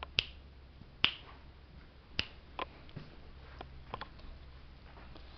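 A dog's feet in cloth shoes clicking on a tile floor as it steps about: sharp clicks at uneven intervals, about seven in all, the loudest in the first two seconds.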